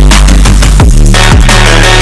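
Background electronic music with a heavy bass line and a driving beat.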